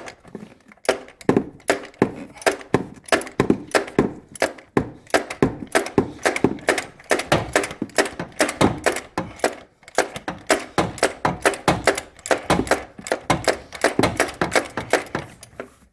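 Extendable half-inch ratchet with a 36 mm socket being worked on the oil filter housing cap: a fast, uneven run of ratchet clicks and knocks, several a second.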